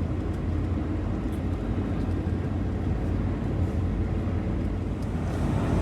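Steady low drone of a loaded truck's engine and road noise heard inside the cab while cruising.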